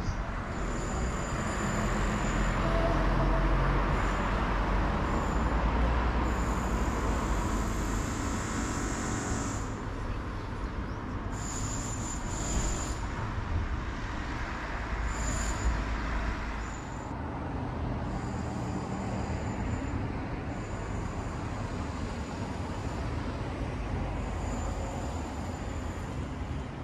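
Outdoor road ambience: traffic on a seafront road, with a low rumble of wind on the microphone. It is louder for several seconds near the start, then settles to a steady hum of traffic and wind.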